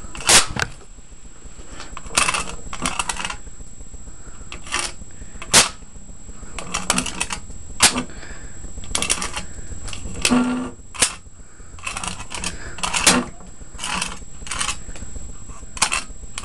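Electric arcs from a home-built high-voltage capacitor bank (two 1000 µF, 220 V capacitors) blasting a circuit board: a series of sharp, loud snaps at irregular intervals, the loudest near the start and about 5 and 8 seconds in, with bursts of rapid crackling between them as sparks fly off the board.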